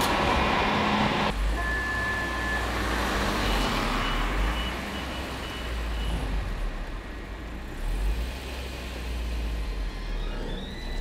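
City street ambience: road traffic with a low rumble and no speech, the sound changing abruptly about a second in.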